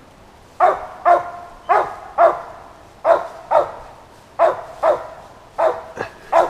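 Squirrel dog tree-barking: about ten short, loud barks, roughly two a second with uneven gaps. The dog is baying at a squirrel it has run up a tree.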